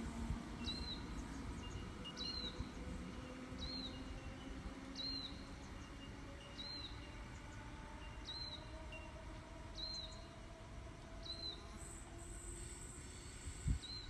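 A bird repeating a short high chirp about every second and a half, over the low rumble of wind on the microphone and the faint hum of an electric train in the distance. A single low thump near the end.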